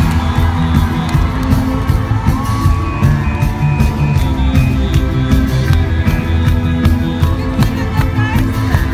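Live rock band playing loudly through an arena PA, with heavy bass and a steady drum beat, recorded from within the crowd. A whoop from the audience rises over the music a couple of seconds in.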